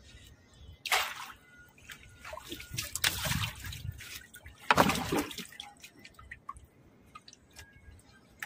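Water splashing as a fish is hauled out of the river on a hand-pulled trot line, in three bursts about one, three and five seconds in, with drips and small clicks between.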